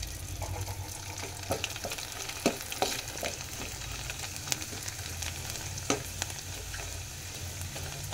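Sun-dried rice fryums (murkula) sizzling as they deep-fry in hot oil in an aluminium kadai, stirred with a metal slotted spoon. A handful of sharp clicks and taps stand out over the steady hiss.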